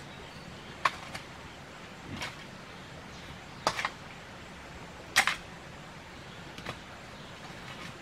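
A hoe's metal blade striking and scraping into loose soil: a handful of short, sharp strikes at uneven intervals of a second or more, the loudest about five seconds in.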